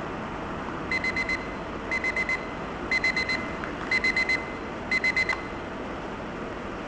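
Electronic alarm of a racing-tyre-shaped alarm clock beeping: five bursts of four quick high beeps, about one burst a second, starting about a second in.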